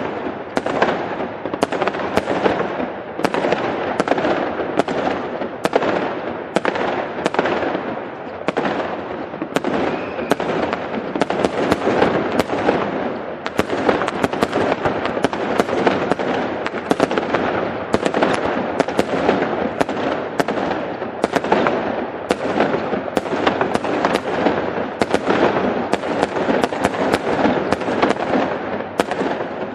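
Fireworks display in a continuous barrage: sharp shell bursts come more than once a second over a dense, unbroken crackle.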